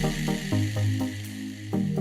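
Electronic background music with a steady beat: repeated synth notes over a bass line.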